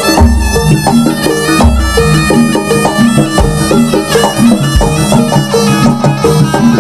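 Live jaranan ensemble music: a shrill, reedy slompret shawm carries the melody over kendang drums and busy metal percussion, with deep gong strokes about every one and a half seconds.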